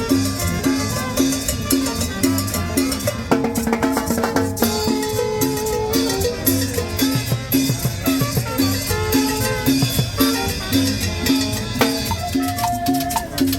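Latin tropical dance music playing loudly, with a steady, evenly repeating drum and percussion beat under a melody.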